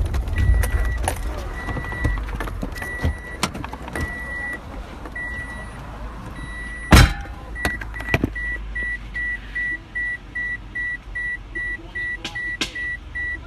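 A car's interior warning chime: a high beep, first in longer tones and then from about eight seconds in as quick even beeps, two or three a second, over a low rumble, with scattered knocks and one loud thump about seven seconds in.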